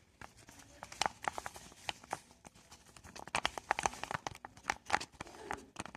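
A stirrer working through a glue, water and shampoo slime base in a container, making a quick, irregular run of sticky clicks and taps.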